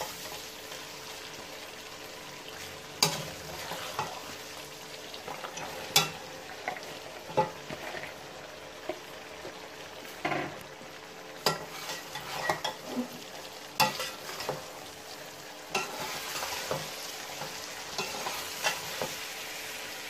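Chicken and freshly added okra frying in oil in a metal pot with a steady sizzle, while a metal spoon stirs and now and then knocks sharply against the pot's sides.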